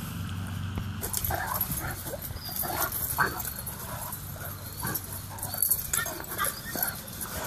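Two Great Danes play-fighting, with a quick run of short yips, whines and barks starting about a second in.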